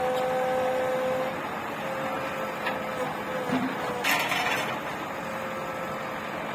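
Diesel engines of a JCB backhoe loader and a tractor running steadily, with a constant whine. A short hiss about four seconds in.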